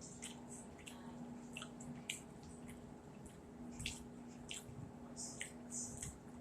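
Quiet, wet mouth sounds of someone eating close to the microphone: chewing with a scatter of short smacks and clicks, over a faint steady hum.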